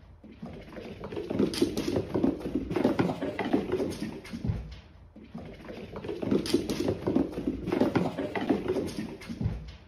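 Quick, irregular footfalls of a cat running across a wooden floor, in two runs with a brief lull about halfway.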